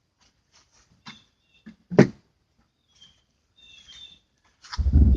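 Scattered light clicks and one sharp knock about two seconds in, with short bird chirps; a low rumbling noise comes in near the end.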